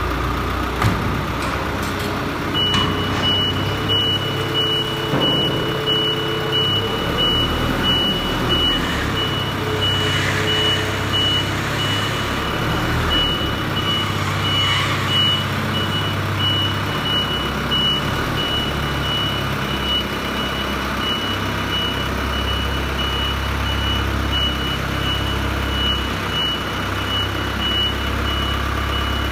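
Small crane truck's reversing alarm beeping as it manoeuvres. A single high tone repeats at an even pace, starting a few seconds in, over the steady hum of the truck's running engine.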